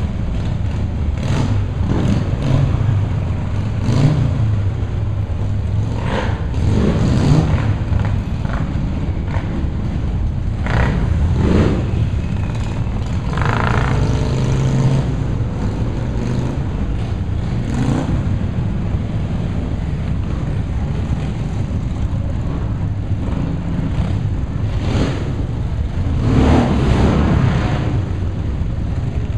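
Many motorcycle engines running together in an underpass, with riders blipping the throttles in repeated short revs over a steady low rumble. The revs come every few seconds, with the biggest swells about a quarter and about nine-tenths of the way through.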